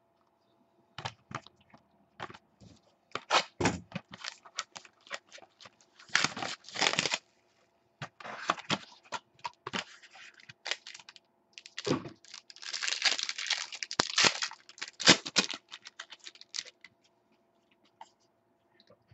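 Trading card pack wrapper being torn open and crinkled, with sharp clicks and taps from cards being handled, in irregular bursts.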